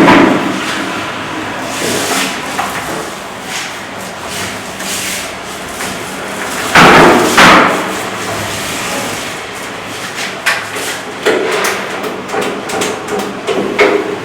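Construction work noise: scattered knocks and thuds like hammering on wood. There are two loud bursts about seven seconds in and a run of quick knocks over the last few seconds.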